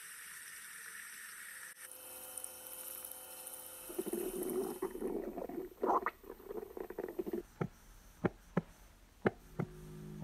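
Experimental soundtrack of noise textures: a steady hiss that changes character about two seconds in, then a rustling, crackling noise, then five sharp clicks near the end.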